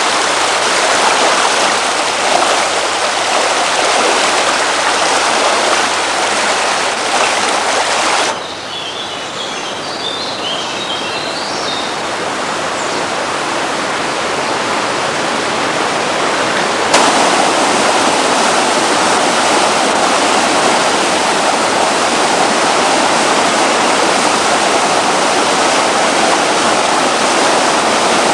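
Rushing floodwater: a steady, dense noise of fast-moving water. It cuts abruptly about eight seconds in to a quieter stretch with a few faint high chirps, then cuts back to full strength about nine seconds later.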